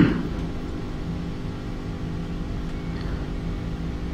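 Steady low hum made of several fixed tones over a low rumble.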